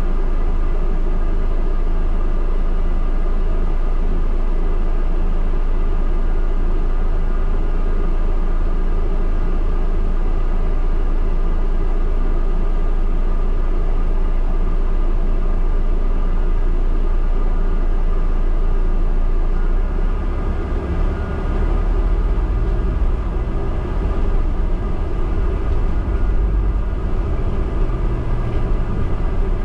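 Steady engine hum and cabin rumble heard from the upper deck of a London double-decker bus held at a red light. About twenty seconds in, the low rumble grows louder and uneven as the bus pulls away.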